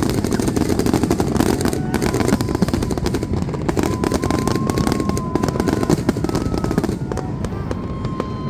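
Aerial fireworks going off in quick succession: a dense, continuous crackling and popping over a heavy rumble, with a faint wavering whistle-like tone through the middle.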